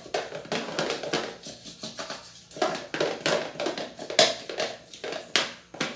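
A utensil scraping cake-like batter down the inside walls of a stopped blender jar, with irregular scrapes and a few sharper knocks against the jar.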